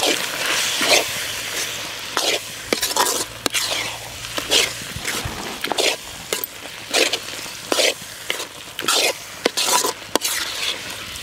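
A perforated metal ladle scraping round a black kadai as it stirs and fries onion-tomato masala with spice powders, in repeated strokes roughly one a second over a steady sizzle. The masala is being fried until the raw smell of the spice powders is gone.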